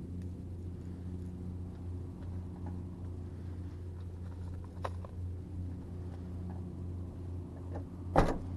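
Steady low mechanical hum, with a few faint clicks about five seconds in and one sharp knock near the end.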